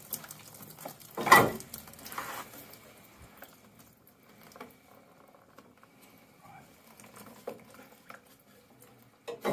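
Metal and plastic parts of a combi boiler knocking and clattering as a plate heat exchanger is worked loose by hand: a sharp knock about a second in, a smaller one soon after, faint scattered taps, then another clatter near the end.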